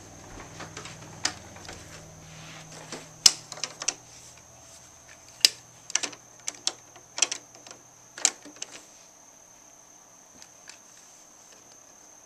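Hard plastic clicks and knocks as toy wheelie bins are handled and hooked onto the rear lifter of a Bruder toy garbage truck. The taps come in a quick irregular run over the first nine seconds, then only a few faint ones.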